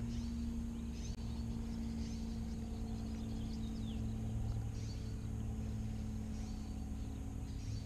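Scattered short bird chirps over a steady low hum.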